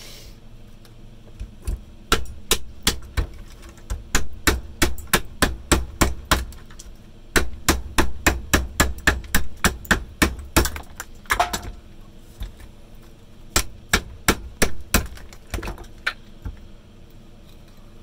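A hammer striking the motor of a Henry vacuum cleaner, smashing the housing apart to free the copper-wound rotor. The blows come quickly, about three a second, in two long runs with a short break between them. A few spaced blows follow near the end.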